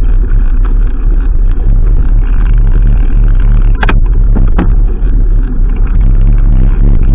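Heavy, steady low rumble of wind buffeting and vibration on a mountain bike rider's action camera microphone while riding a rough dirt track, with two sharp clicks about four seconds in.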